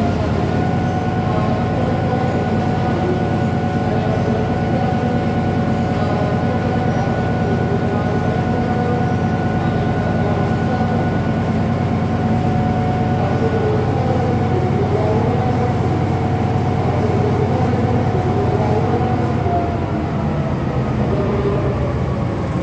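Coupled diesel locomotives, a Sri Lanka Railways Class M6 among them, running with a steady low engine drone. A high steady whine rides on top and dies away near the end.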